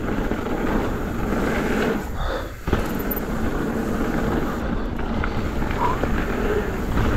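Wind rushing over the microphone and the downhill mountain bike's knobby tyres rolling on a dirt trail at speed, with the bike rattling. About two and a half seconds in the noise drops away briefly and ends in a sharp knock.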